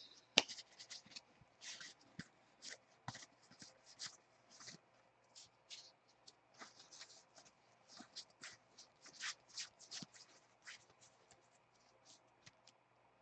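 Football trading cards being thumbed through one by one in the hand: a run of faint, irregular slides and flicks of card stock, thinning out near the end.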